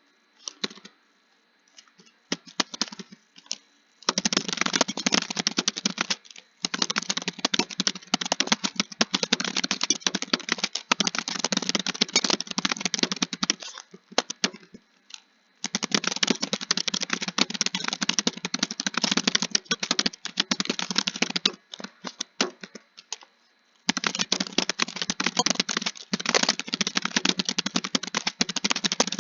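Computer keyboard typing: fast runs of keystrokes broken by short pauses, with only a few scattered taps in the first few seconds.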